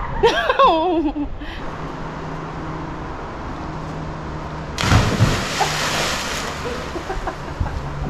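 A person yelling with a wavering pitch while swinging out on a rope swing, then about five seconds in a loud splash as she drops into the river.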